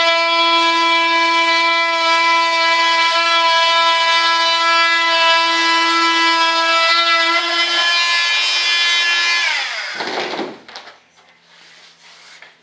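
Electric vibrating saw running with a steady high whine while cutting. About nine and a half seconds in it is switched off, and its pitch falls as it winds down, followed by a few faint knocks.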